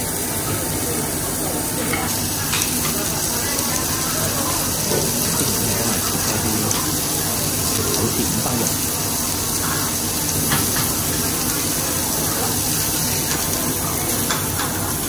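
Pork belly sizzling on a tabletop barbecue grill plate, a steady frying hiss mixed with the rush of the overhead smoke extraction hood. A few light clicks come from the metal tongs and scissors cutting the meat.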